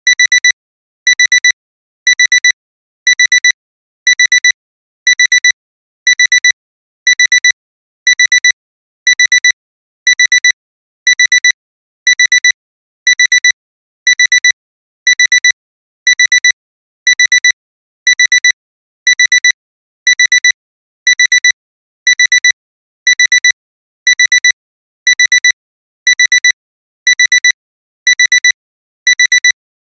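Alarm-clock beeping: a quick cluster of high beeps about once a second, repeating steadily. It is the timer's end signal, sounding continuously once the 37 minutes are up.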